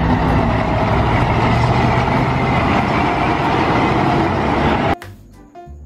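Heavy KTA-25 truck crane's diesel engine running steadily as the truck drives along the road. It cuts off suddenly about five seconds in, giving way to quieter music.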